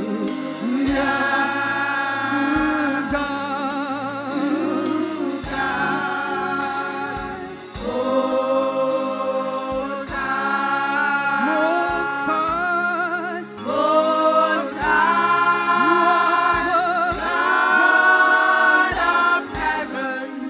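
Gospel worship singing: a lead voice with a choir or congregation sings long, held "hallelujah" phrases with vibrato over steady instrumental accompaniment, in several phrases with short breaths between them.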